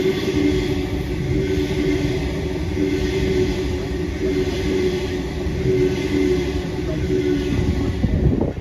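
Sydney Trains Waratah B-set electric train running past along the platform, a steady rumble with a constant hum. The sound falls away at the very end as the last car passes.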